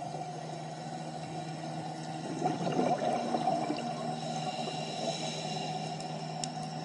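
Underwater sound on a scuba dive: a steady low hum under a gurgling water noise. From about two and a half seconds in, a louder burst of bubbling lasts about a second, typical of a diver's exhaled regulator bubbles.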